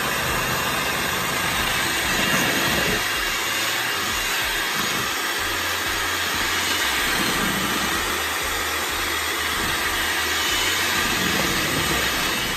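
Electric hand mixer running steadily, its beaters whipping egg whites in a glass bowl as they stiffen for a batter coating.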